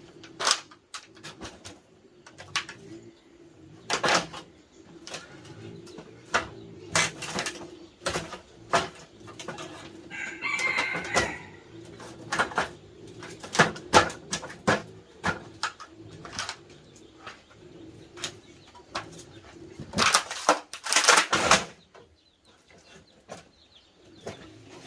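Birds cooing softly, with many sharp knocks and clicks scattered through, loudest in a quick cluster near the end.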